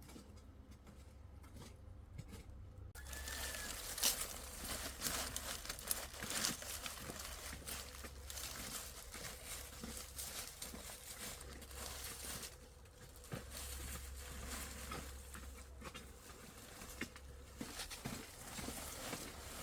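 Dry leaves and undergrowth rustling and crackling, with many small clicks, light knocks and scrapes, starting about three seconds in.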